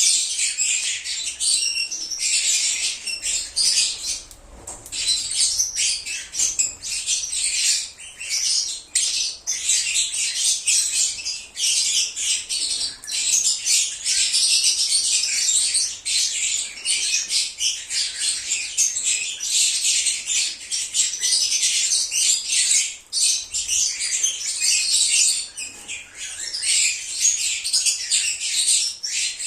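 A flock of lovebirds chirping and screeching shrilly, a dense unbroken chatter of many high calls overlapping.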